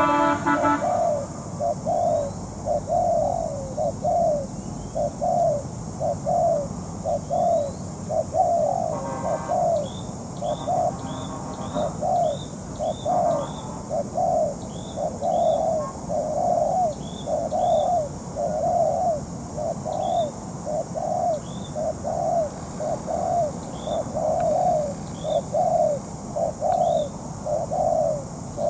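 Spotted dove cooing steadily, with short low coos following one another a little over once a second. Small birds give faint, short high chirps now and then over it.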